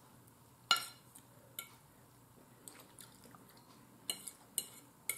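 A metal fork clicking against a plate a few times, the loudest about a second in, with faint chewing in between.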